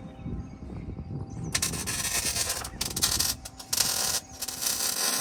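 Arc welder laying weld on a car's sheet-steel floor pan: a loud crackling hiss starts about a second and a half in, stopping and restarting several times between short welds.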